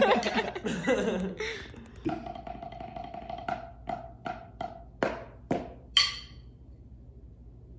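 Wooden drumsticks striking a drum practice pad: a slow, slightly uneven run of single strokes, a little over two a second, that stops about six seconds in.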